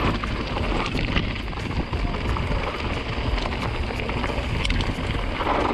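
Wind rushing over an action camera's microphone with steady tyre rumble and scattered clicks and knocks from a mountain bike descending a dirt singletrack.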